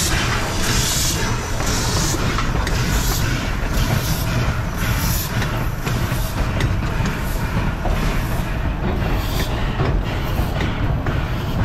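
A narrow-gauge steam passenger train rolling past at close range: a steady low rumble of coach wheels on the track, with scattered clicks. Regular exhaust beats from the Baldwin 2-8-2 steam locomotive are heard in the first few seconds, then fade as the engine moves off.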